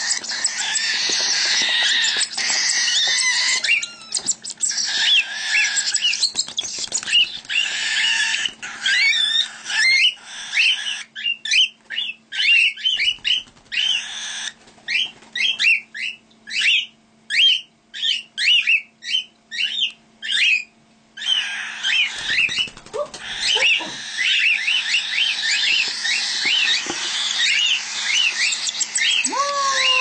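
Cockatiel chicks giving high, rasping begging calls in a dense, fast stream. For about ten seconds midway the calls thin out into separate short chirps, about two a second, then crowd together again.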